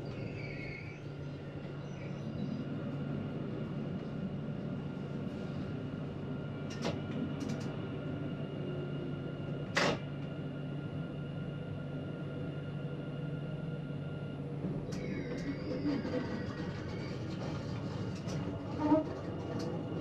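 Electric tram running: a steady hum with faint whining tones, and sharp clicks here and there, the loudest about halfway through.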